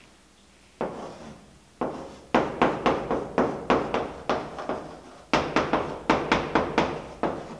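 Chalk writing on a blackboard: quick taps and scrapes as each letter is stroked on. Two single strokes come first, then two runs of about three or four strokes a second with a short pause between them.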